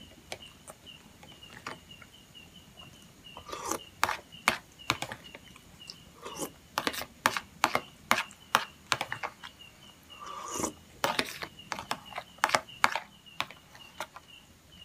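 Metal spoon clicking and scraping against a plastic plate while rice mixed with young coconut and milk is scooped up, sparse at first and busier from a few seconds in. A faint high chirp repeats about three times a second underneath.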